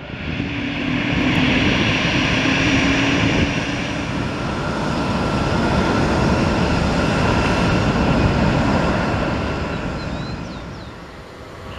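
Jet engines of an Airbus A321-211 airliner (CFM56) running loud as it moves along the runway. The noise swells right at the start, holds strong, and fades away near the end.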